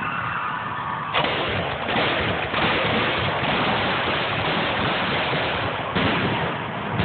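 Fireworks going off at close range: a sudden loud onset about a second in, then a continuous dense hiss of spark fountains spraying, with another sharp burst near the end.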